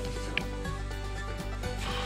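Background music with sustained notes over a steady low bass, with one brief sharp sound about half a second in.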